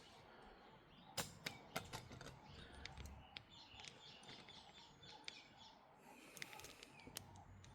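Very quiet background with a few faint sharp clicks and taps about a second in, and faint bird chirps in the background.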